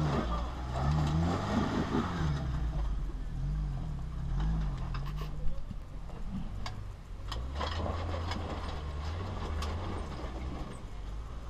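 Jeep engine under load on a rocky off-road climb, revving up and down repeatedly as the driver works the throttle, then running more steadily. A few sharp clicks sound about halfway through.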